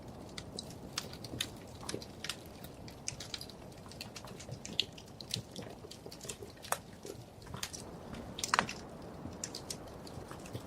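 Wood fire in a fireplace crackling: irregular sharp pops and snaps over a low steady hiss, with a louder cluster of pops about eight and a half seconds in.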